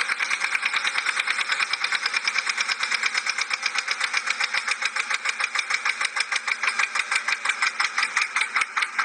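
Tractor engine running under load with a fast, even knocking beat, about eight a second.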